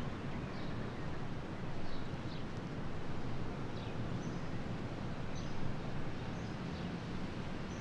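Open-country ambience: steady background noise with a few short, faint, high bird chirps scattered through it.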